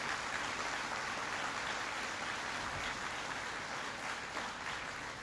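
Audience applauding, a steady dense clapping that slowly dies away near the end.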